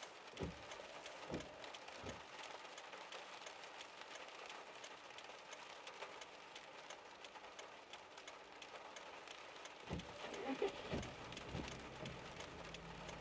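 Faint sound of a car cabin while stopped in the rain: many small irregular ticks of raindrops on the windshield and roof, with a few soft low thumps in the first two seconds and again near the end.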